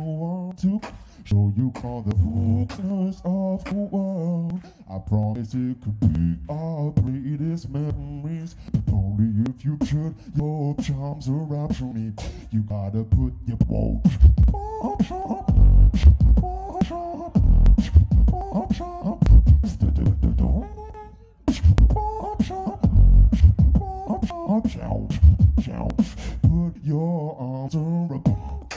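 Solo beatboxing into a handheld microphone: sharp vocal-percussion clicks and snares over a wavering hummed melody. About halfway through, a deep bass line comes in under a higher melody, drops out for a moment about two-thirds of the way through, then returns.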